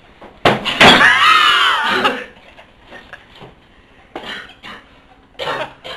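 A hardcover dictionary smacking a person's head twice in quick succession, followed at once by a loud yell of pain lasting about a second and a half. A few short groans follow near the end.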